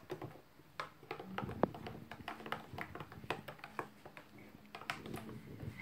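Spoon clicking and scraping irregularly against the sides of a blender cup while stirring a thick, coarse pesto. A low steady hum runs underneath from about a second in.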